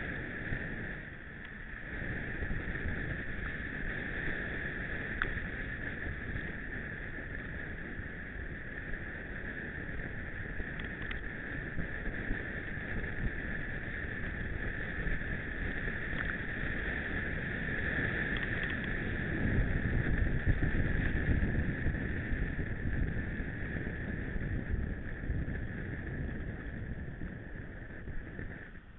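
Mountain bike riding downhill along a track: steady tyre rumble and frame rattle with wind on the microphone, growing louder for a few seconds past the middle.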